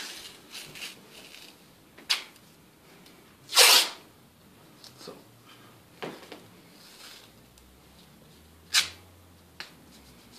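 White athletic strapping tape being pulled off the roll and torn while it is wrapped around an ankle: five short ripping sounds, the loudest and longest about four seconds in.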